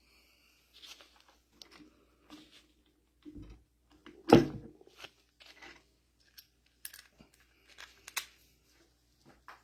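Scattered clinks and knocks of hand tools and metal parts being handled while a mini excavator's hydraulic control valve is taken apart, with one sharp, much louder knock a little over four seconds in.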